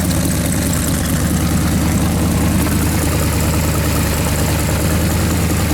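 383 V8 engine idling steadily on an engine run stand, with an even, unchanging note.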